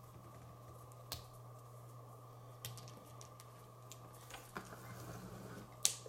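Small hard-plastic toy parts and their sprue frame clicking and tapping as they are handled, a few scattered sharp clicks with the loudest near the end, over a faint steady hum.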